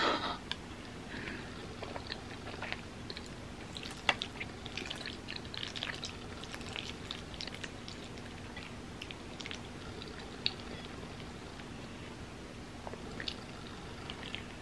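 Close-miked eating of creamy elbow pasta: soft wet chewing and lip smacks, with a sharp click about four seconds in. A faint steady hum runs underneath.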